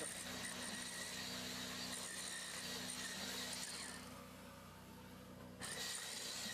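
Faint steady hum of a running engine with background hiss; it fades about four seconds in and comes back abruptly a second and a half later.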